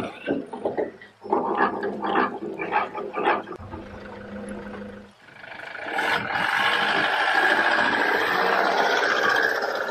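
Metal clinking and clanking as the trailer winch hook and shackle are clipped onto a boat's bow eye. From about five seconds in, a loud, steady rush swells up as the tow vehicle hauls the boat on its trailer up the ramp, water streaming off the hull and trailer.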